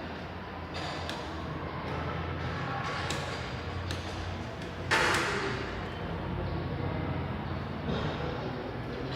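Scattered knocks and clatter over a steady low hum, the loudest a sharp thump about five seconds in that rings on briefly.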